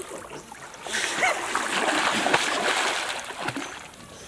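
Pond water splashing and churning around people wading in it while catching fish by hand. The splashing swells about a second in and lasts around two seconds.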